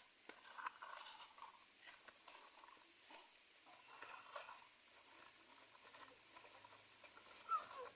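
Faint pattering and light clicks of toy trucks and their load of small stones or sand being moved by hand.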